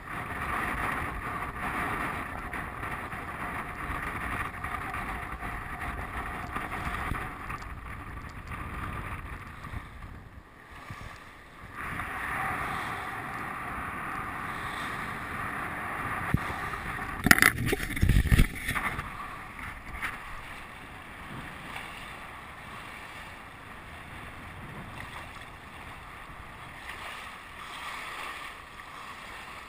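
Wind buffeting the microphone and water rushing past the hull of a First 27 sailing yacht heeled under sail. The sound briefly drops away about ten seconds in, and there is a loud buffet on the microphone about seventeen seconds in.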